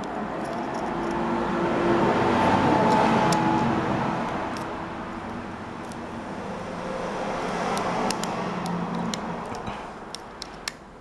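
Road traffic passing by, a rising and falling rush of vehicle noise that swells twice. A few light clicks near the end.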